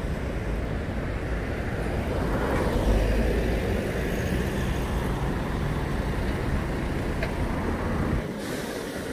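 Low rumble of a road vehicle running, which drops away abruptly about eight seconds in.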